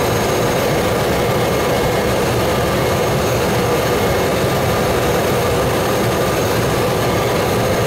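Cessna 208B Grand Caravan's single PT6A turboprop engine and propeller running steadily at taxi power, heard from inside the cockpit: an even roar with a steady hum and whine over it.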